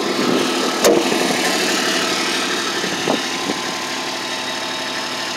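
Kubota RTV-X1100C's three-cylinder diesel engine idling steadily, with one sharp click about a second in.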